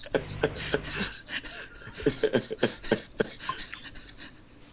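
People laughing and chuckling in short pulses, with bits of indistinct talk, heard over a video-call audio feed.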